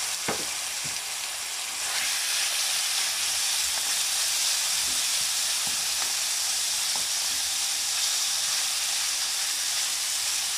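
Chicken fillet pieces sizzling steadily in hot oil in a frying pan, searing on high heat, with light taps and scrapes of a wooden spatula stirring them. The sizzle gets a little louder about two seconds in.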